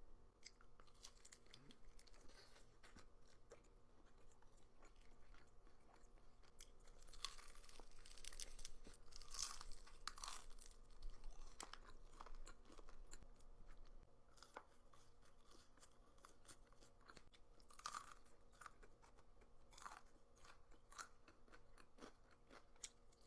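Close-miked crunching and chewing of crispy fried chicken, a run of sharp crackling bites that is loudest in the middle stretch, with softer chewing either side.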